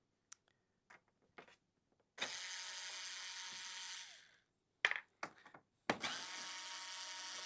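Small electric screwdriver running twice, about two seconds each time, backing out the short screws of a mixing-console screen assembly, with light clicks of screws and handling in between.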